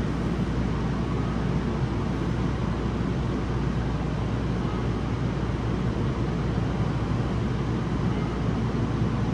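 Steady running noise inside a Yokohama Municipal Subway 4000 series car: a deep, even rumble of wheels on rail in a tunnel, with no clear motor whine.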